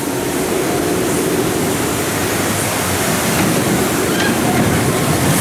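Water rushing steadily down a log-flume chute.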